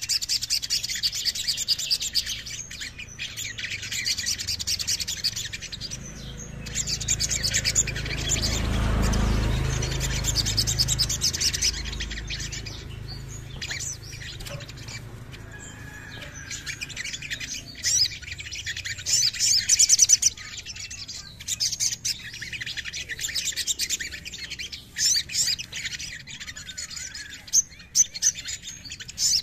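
Male olive-backed sunbird singing: rapid, high-pitched chirping and trills with short breaks, loudest about two-thirds of the way in. A low rumble swells and fades about a third of the way in.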